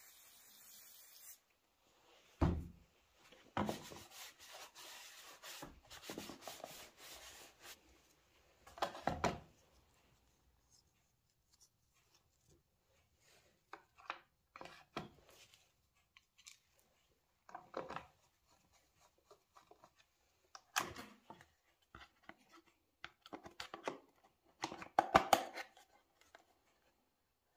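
Hard plastic scooter cooling-shroud parts being handled: scattered knocks, clicks and rubbing as the pieces are turned over and set against a metal workbench, with a heavier thump a couple of seconds in.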